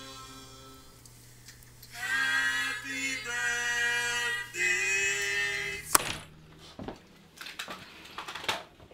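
A cappella vocal music with several voices holding long sung notes, which stops about six seconds in with a single sharp click. After the click come a few soft knocks.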